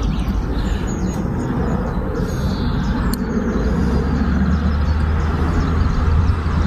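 Steady low rumbling outdoor noise with faint bird chirps above it.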